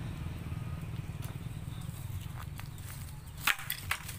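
A motor running with a steady low, pulsing hum that slowly fades, with two sharp clicks a little before the end.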